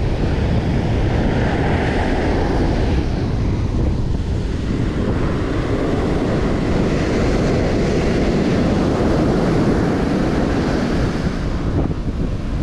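Surf breaking and washing up the beach, with wind buffeting the microphone in a steady low rumble.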